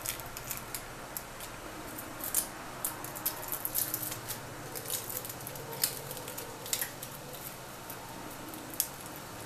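Light, irregular crackles and scrapes as a thin, drying sheet of garbanzo-bean-flour filo is peeled and pressed off the pan with fingers and a fork, over a faint steady hum.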